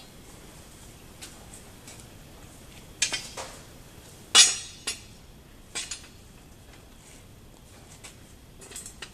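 Steel rebar pieces clinking and clanking against each other and the concrete floor as a rebar frame is set down and a rebar leg is fitted into its pipe fitting. Several short metallic knocks, the loudest about four and a half seconds in.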